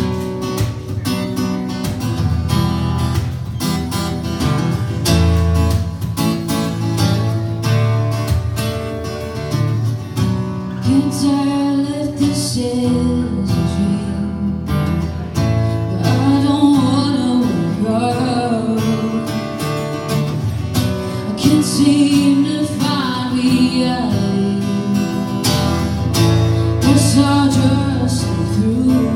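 Acoustic guitar strummed alone to open a song. About ten seconds in, a woman's singing voice comes in over the guitar.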